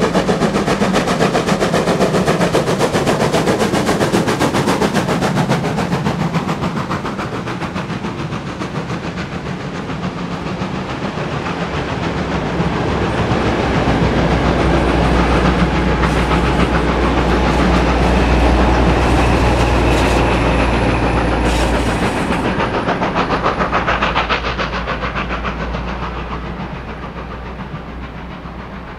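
A steam-hauled train passing at speed: fast, even exhaust beats from the locomotive at first, then the wagons rolling by with clickety-clack over the rail joints. The train's sound swells to a peak about two-thirds of the way through, then fades as it goes away.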